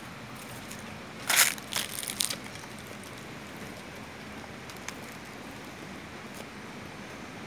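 A brief crunching crackle starting a little over a second in: a few quick crunches lasting about a second, over a steady faint background.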